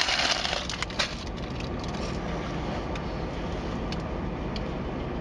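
Crackling, crinkling rustle of a food wrapper being handled, dying away in the first half second, then a few sharp clicks about a second in, over a steady low rumble.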